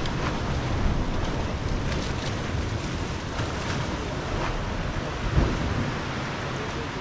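Sea surf washing through a narrow rocky gully, with wind buffeting the microphone in low rumbling gusts. A single brief thump about five and a half seconds in.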